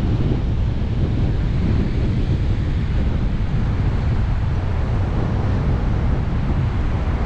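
Strong gusty wind buffeting the camera's microphone, a continuous low rumbling flutter over a steady rushing hiss.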